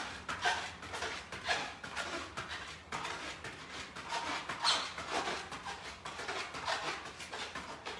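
A man breathing hard in quick, rhythmic breaths, about two a second, while doing mountain climbers on an exercise mat.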